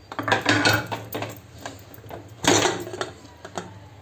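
Metal clicks and clattering knocks of an aluminium pressure cooker's lid and weight being worked open after cooking, loudest just after the start and again about two and a half seconds in.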